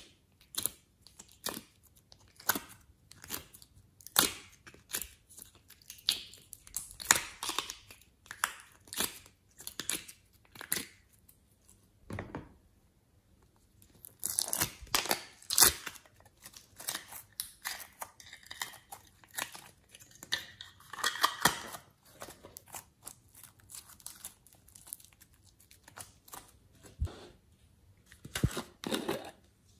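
Glossy slime being squeezed, stretched and pulled apart by hand, giving irregular runs of wet crackling, popping and tearing sounds, with a short lull about twelve seconds in.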